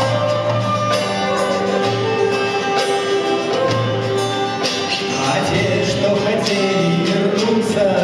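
A live folk-rock band playing an instrumental passage of a song: held melody notes over a steady beat of percussion strikes.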